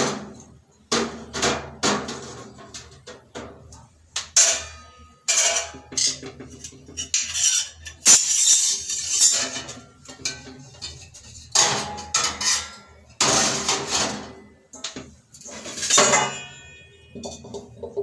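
Stainless-steel plates, bowls and utensils clanking and clinking as they are set onto a steel dish rack: a string of irregular sharp clanks, several with a short metallic ring.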